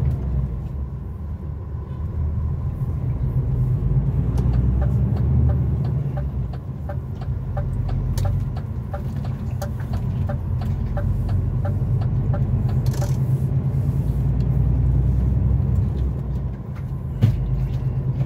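Heavy truck's diesel engine running steadily at road speed, heard from inside the cab, with a regular light ticking through the middle and one sharp click near the end.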